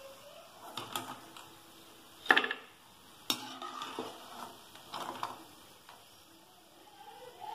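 A steel slotted spoon scrapes and knocks against a steel kadai as it scoops fried masala peanuts out of the oil, over a faint sizzle of the hot oil. The two loudest knocks come a little after two seconds and about a second later.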